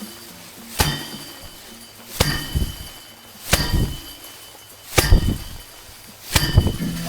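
Bundles of harvested rice stalks beaten hard against a threshing tub to knock the grain loose: five sharp whacks at an even pace of about one every second and a half, each followed by a brief rustle of straw and scattering grain.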